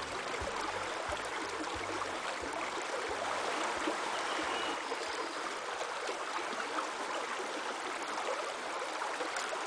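River water rushing and churning steadily around a miniature horse as he swims and wades through it.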